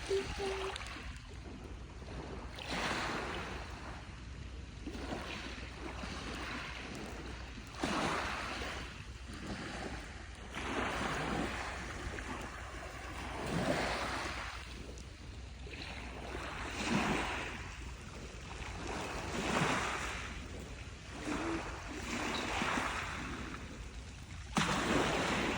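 Small waves breaking and washing up on a beach, a new swell of surf every two to three seconds, over a steady low rumble of the sea.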